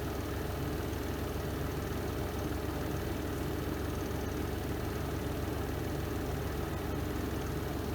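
Spin drum of a Renova semi-automatic twin-tub washing machine running its spin cycle: a steady, even low hum.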